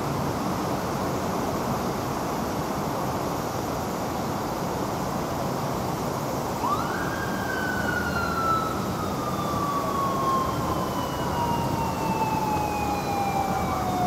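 Police motorcycle siren winding up quickly about halfway through, then slowly falling in pitch, over steady traffic noise: the traffic-police rider signalling a speeding car to pull over.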